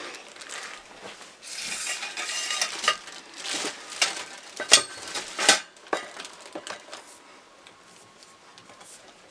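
Metal garment-rack bars being handled: a scraping slide lasting about a second, then a run of sharp metallic clinks and taps, the loudest two about five seconds in, before it goes quiet.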